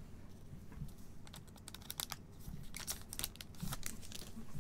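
Quiet clicks and light scraping of Panini Flux basketball trading cards being picked up and slid over one another by gloved hands. The clicks come in quick irregular clusters from about a second in.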